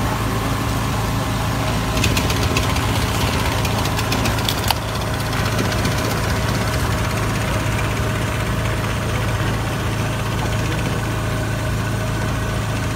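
An engine running steadily at idle, an even low hum that does not change. About two seconds in there is a stretch of fast ticking, which ends in a sharp knock a little before five seconds in.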